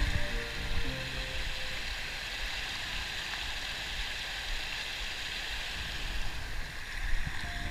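Small mountain stream rushing over rocks: a steady, even hiss of running water, with a couple of low thumps in the first second.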